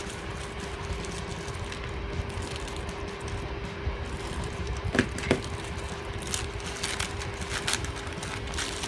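Small plastic packets being handled and opened, with short rustles and two sharp clicks about five seconds in, over a steady hum.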